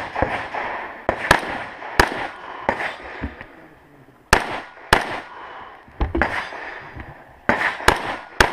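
AR-15 rifle firing about a dozen shots at an uneven pace, some in quick pairs, each shot followed by a short echo.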